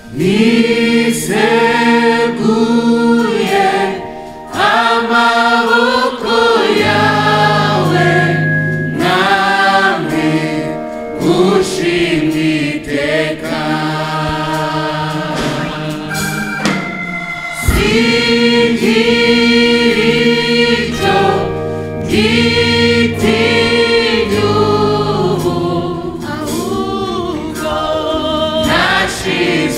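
Gospel choir singing, many voices in harmony, coming in together loudly at the start after a quieter passage.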